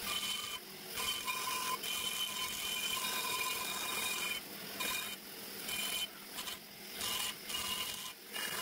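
Long-shank die grinder cutting inside the aluminium exhaust port of a Nissan RB26 cylinder head. It gives a steady high whine over a grinding hiss that breaks off and comes back several times as the tool is worked in and out of the port.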